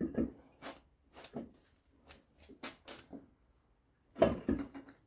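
Irregular knocks and scrapes as a tractor rear wheel with a new tyre is handled and lined up on the axle hub, the wheel rim knocking against the hub. The loudest knock comes about four seconds in.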